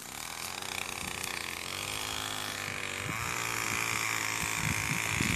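A small engine running steadily nearby, with a few low knocks of handling in the second half.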